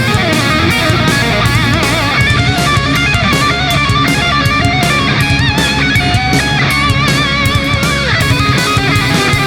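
Background music: heavy rock with distorted electric guitar playing a wavering lead line over a steady low end.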